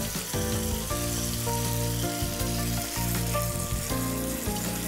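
Chicken pieces in tomato passata sizzling in a frying pan as sautéed mushrooms are scraped in and stirred with a wooden spoon. Soft background music with held notes plays underneath.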